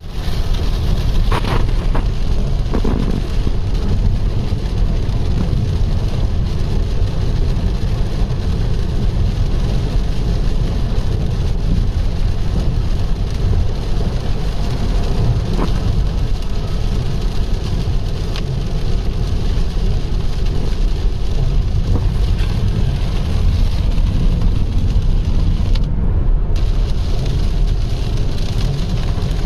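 Steady road and engine rumble heard from inside a moving car, with rain hissing on the car's body and windscreen and a few faint isolated ticks.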